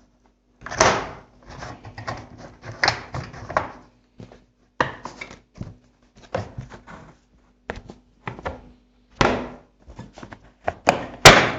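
Semi-automatic washing machine's body panel being pulled and worked loose by hand: irregular clattering and knocking, with a sharp, loud knock near the end.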